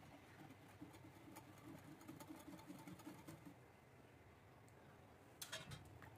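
Faint rapid clicking of a wire whisk's tines against a glass bowl as milk is whisked. A short louder noise comes near the end.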